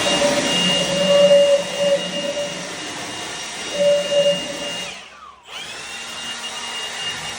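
A motor-driven tool or machine running at full speed with a steady high whine, twice: it runs for about five seconds, coasts down in pitch, then starts again for about two more seconds and winds down again.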